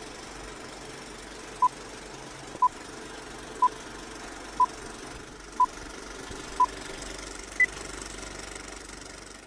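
Old-film countdown leader sound effect: a film projector's steady rattling run under a short beep once a second, six in all, then one higher beep a second later. The projector noise fades away near the end.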